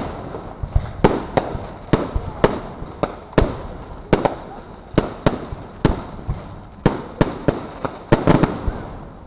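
A fireworks display: aerial shells bursting in an irregular run of sharp bangs, about two a second, some coming in quick pairs.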